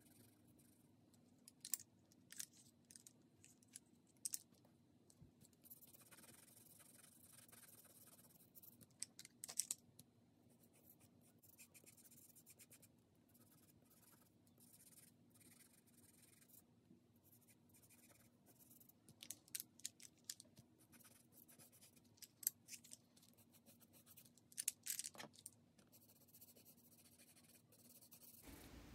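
Faint, intermittent scratching of a pastel pencil's tip stroking across Pastelmat pastel paper while shading. The strokes come in short clusters, with near silence between them.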